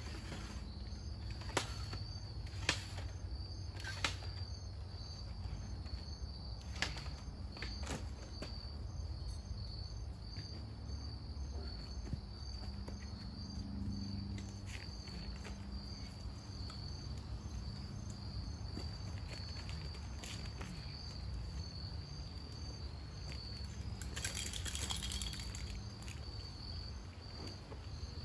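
Crickets chirping steadily in a continuous high-pitched chorus. Several sharp clicks and knocks sound in the first eight seconds, and a short hiss comes near the end.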